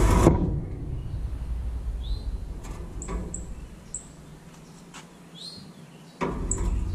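Metal grill cooking grates rattling and clanking as they are set down into a gas grill, loudest right at the start and again from about six seconds in. Birds chirp several times in between.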